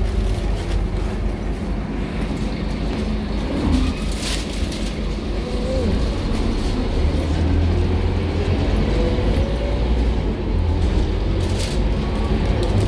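Scania K230UB city bus under way, heard from inside the passenger saloon: the steady low rumble of its nine-litre five-cylinder diesel engine with road noise, and a few short rattles.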